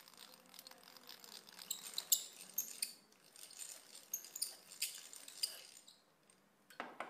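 Irregular light metal clicks and clinks as a hand-cranked drill with a long thin bit is handled and its chuck worked by hand, with one louder knock near the end.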